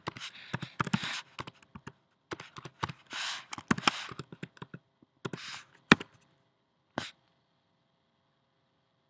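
Typing on a computer keyboard: a quick, irregular run of key taps, ending with two sharper single clicks about six and seven seconds in.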